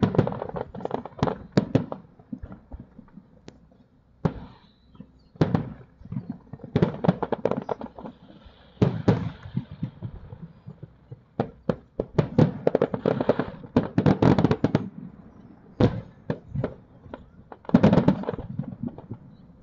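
Aerial fireworks shells bursting in a display, sharp bangs coming in rapid runs and clusters with short gaps between them.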